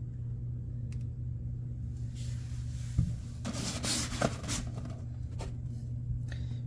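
Cardboard bobblehead boxes handled on a display-cabinet shelf: a knock about three seconds in, then about a second of cardboard scraping and rubbing as a box is gripped and moved, with a few small knocks near the end, over a steady low hum.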